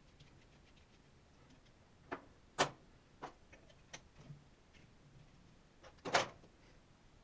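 Scattered sharp clicks and small knocks from a laptop and tools being handled. The loudest comes about two and a half seconds in, and a short cluster of clicks comes around six seconds in.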